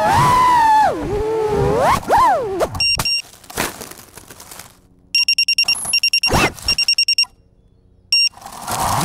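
FPV quadcopter motors whining, their pitch rising and falling with the throttle, cutting out about three seconds in. In the quiet that follows come rows of rapid high electronic beeps and a brief motor blip, before the motors spool back up near the end.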